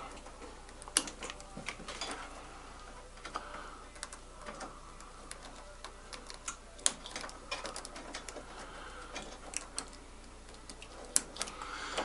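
Small, irregular clicks and rustles of plastic wire-harness connectors and their wires being handled and plugged into a washing machine's control board.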